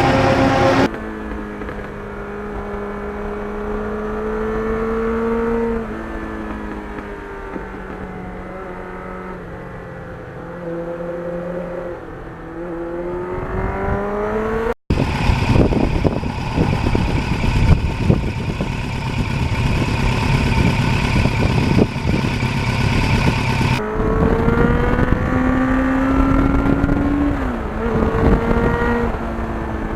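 Motorcycle engine under way, its pitch climbing steadily and then dropping several times as it works through throttle and gear changes. In the middle there is a stretch of heavier rushing noise, and the sound breaks off abruptly twice.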